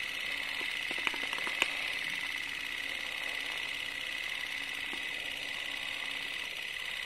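Old film projector sound effect: a steady whirring hiss with a faint, even mechanical rattle, and a few sharp clicks about a second to a second and a half in.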